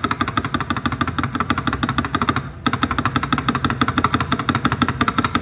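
Rapid repeated presses of the spacebar, a stabilized key on a mechanical keyboard with lubed and filmed Prevail Epsilon linear switches and thick OEM-profile keycaps. It gives a fast run of short clacks, with a brief pause about two and a half seconds in, then another run. The sound is deep and muted, 'khá trầm đục'.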